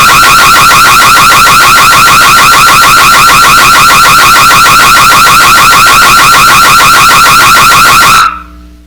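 Burglar alarm siren sounding a rapid, high-pitched warble, very loud and distorted. It cuts off abruptly near the end, leaving a faint low hum that fades out.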